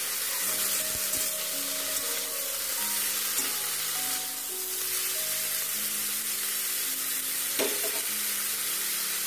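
Broccoli, soya chunks and chopped vegetables sizzling in hot oil in a large kadai as they are stirred with a spatula, with a few light scrapes. Soft background music plays underneath.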